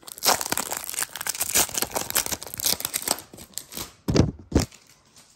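Foil wrapper of a trading card pack being torn open and crinkled for about three and a half seconds, then two louder rustling thumps a little after four seconds in.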